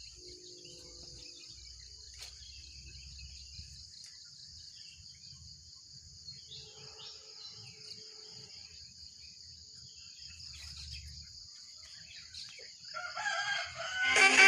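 Insects droning steadily at a high pitch, with roosters crowing faintly now and then and scattered bird chirps; a louder crow rises near the end.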